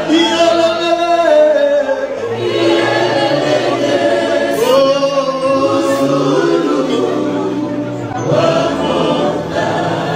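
A choir singing a song together, performed live in a hall.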